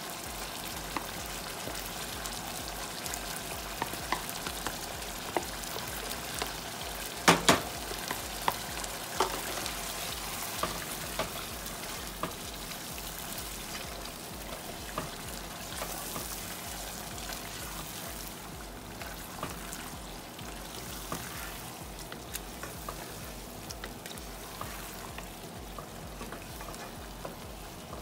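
Spinach and meat curry sizzling steadily in a pan as a wooden spoon stirs and folds the spinach in, with scattered light knocks of the spoon against the pan and a sharp double knock about seven seconds in.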